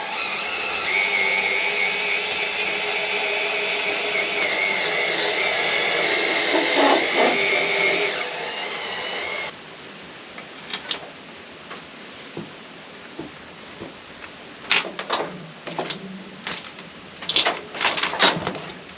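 A powered log turner on the sawmill rolling a large spruce log over: a motor runs with a steady whine for about nine seconds, dipping in pitch under load near the end, then cuts off. It is followed by scattered sharp knocks and clunks as the log settles.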